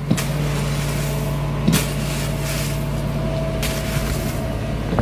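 Small engine of a mini track loader idling steadily, with a few short scrapes of a shovel in gravel.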